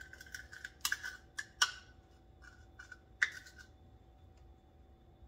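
A metal spoon clinking and scraping against a skillet as sugar and honey are spooned in: about eight sharp clicks over the first three seconds or so, several with a short metallic ring.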